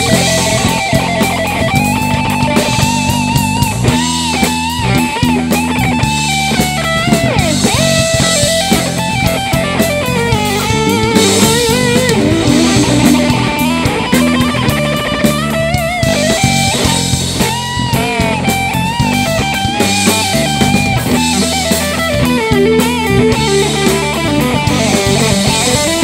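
A rock band playing an instrumental break: a lead electric guitar plays a melodic line with bends and vibrato over electric bass and a drum kit.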